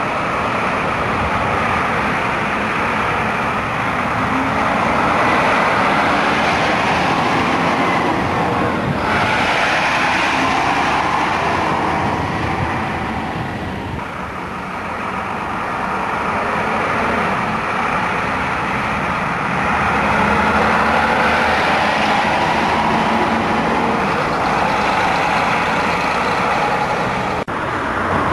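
Leyland National single-deck buses' diesel engines running amid road traffic at a junction: a steady vehicle noise that dips and swells again about halfway through.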